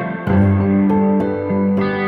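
Background music: a guitar-led track with sustained chords.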